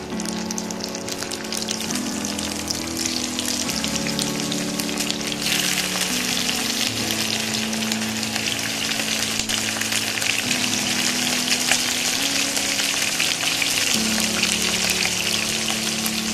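Whole prawns sizzling and crackling in hot oil in a wok as they are dropped in one after another. The sizzle gets louder about five and a half seconds in as more prawns go in. Soft background music with held notes plays underneath.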